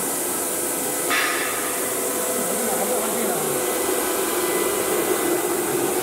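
Woodworking CNC router with an automatic tool changer running: a steady machine whir with a few held tones, and a brief higher sound about a second in.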